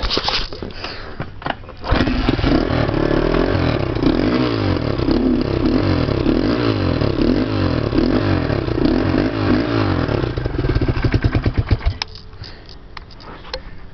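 A 1986 Honda ATC 200X three-wheeler's single-cylinder four-stroke engine catches about two seconds in and runs crisply, its pitch rising and falling with blips of the throttle, a good runner. Near the end it stutters briefly and then cuts off suddenly.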